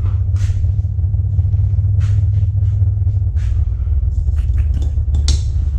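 Steady low mechanical hum, with a few light clicks and rustles over it.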